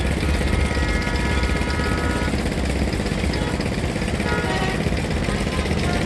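Background music over a steady low rumble like a running engine, with held tones coming in for a second or two at a time.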